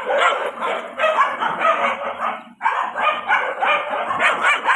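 Several kennel dogs barking at once, the barks overlapping into a continuous din that stops for a moment about two and a half seconds in and then starts again.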